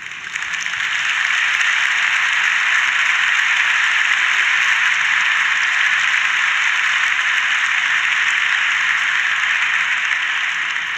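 Large audience applauding: dense, steady clapping that swells over the first second and eases off near the end.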